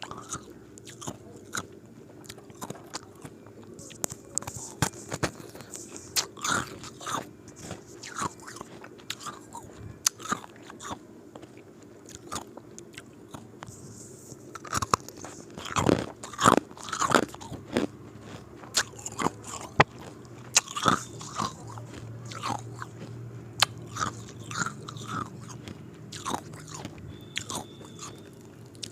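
Ice cubes being bitten and crunched between the teeth, a run of sharp cracks and crunches, loudest in a cluster about halfway through.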